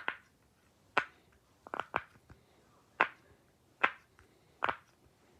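A series of short, sharp clicks or snaps, about one a second, with a quick cluster of three a little before the two-second mark.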